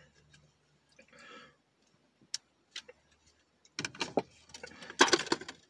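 Handling noises inside a car: a few isolated light clicks, then a flurry of clicks, knocks and rustling in the last two seconds as someone shifts about and handles things.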